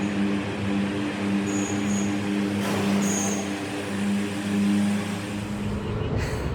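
Motor-vehicle engine hum heard inside a road tunnel, with a brief whoosh about three seconds in. The hum stops near the end.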